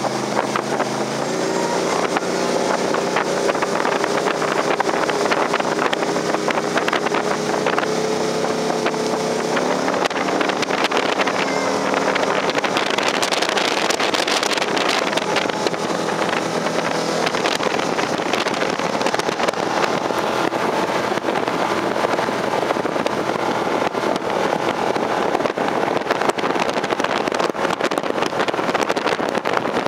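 1992 Four Winns 221 Liberator speedboat underway: its engine note rises about a second in and climbs again around ten seconds as the boat picks up speed. After that, steady rushing wind buffeting the microphone and water noise take over from the engine.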